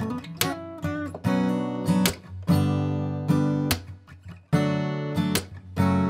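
Background music of strummed acoustic guitar chords, struck every half second or so, each ringing out and fading.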